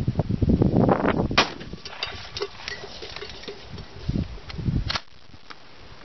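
A single shot from a 12-gauge Remington 870 pump-action shotgun firing birdshot, about a second and a half in, blasting an aluminium kettle. Scattered light ticks follow the shot.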